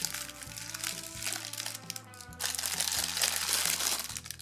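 Cellophane gift bag crinkling as it is untied and a foam strawberry-cake squishy is pulled out of it. The crinkling is loudest from about halfway through to near the end, over background music.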